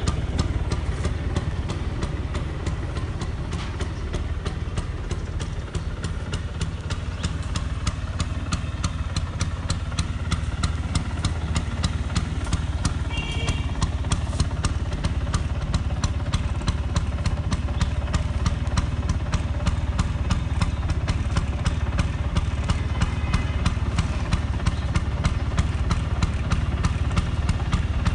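Vespa 150 Standard scooter's single-cylinder two-stroke engine idling steadily, with an even, rapid ticking beat.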